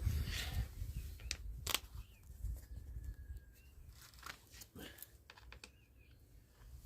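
Handling noises from tools and parts: a few sharp clicks and rustling over a low rumble, with faint bird chirps.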